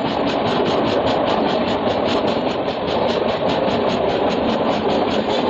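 Express trains running on adjacent tracks, heard from an open coach doorway: a loud, steady rush of wheels on rails with no let-up.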